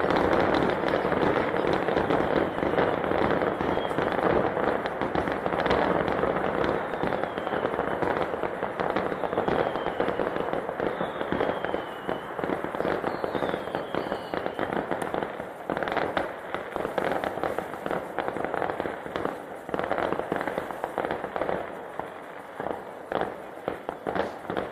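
A New Year fireworks display: a dense, continuous barrage of crackling and bangs that thins into separate sharp reports over the second half, with a few short falling whistles in the middle.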